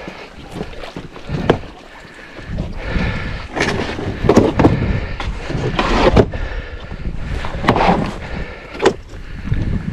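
Irregular knocks, clanks and scrapes of dock parts being handled and taken apart by hand, with a few sharp clicks.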